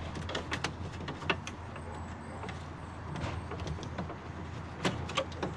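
Scattered small clicks and knocks of hands working metal and plastic parts around the bonnet catch in a car's front slam panel, with a sharper knock about a second in and another near the end.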